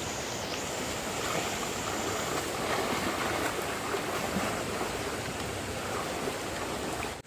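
Steady rushing of a swollen stream in flood: a dense, even hiss of fast-moving water that cuts off abruptly near the end.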